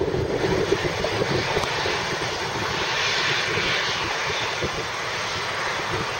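Jet engine noise from an Air Canada Boeing 767-300ER on the runway: a steady rushing sound over a low rumble, its hiss swelling about halfway through.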